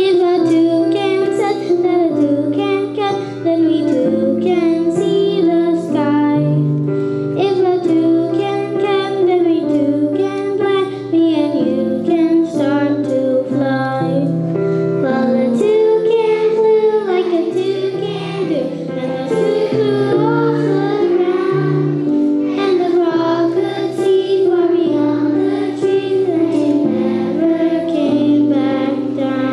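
A group of young children singing a song together with instrumental accompaniment.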